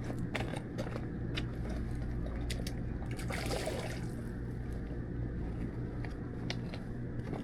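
A steady low motor hum with light water noise, broken by a few sharp clicks and a brief swish about three and a half seconds in.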